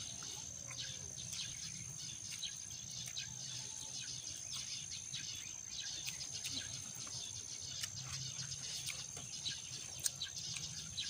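A steady high-pitched insect drone, with many short faint ticks and chirps scattered through it.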